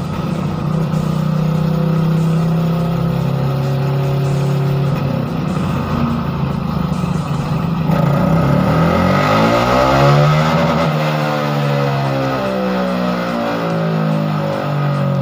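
Bored-up Honda CRF150L single-cylinder engine running hard, its pitch held fairly steady at first, then sweeping up and down from about eight seconds in.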